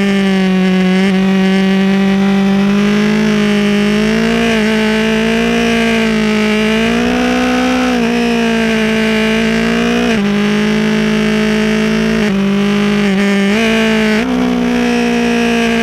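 BMW S1000R's inline-four engine running hard at around 7,000 rpm, heard from on the bike. Its pitch rises and falls with the throttle through the bends, with a few sudden jumps in pitch over the last few seconds.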